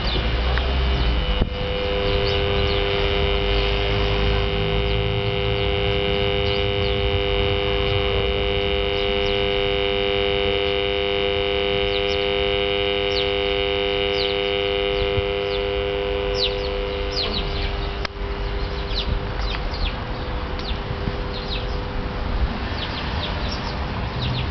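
A steady electrical hum made of several held tones, cutting off with a click about three-quarters of the way through. Short, quick falling bird chirps come in over its last seconds and carry on after it stops.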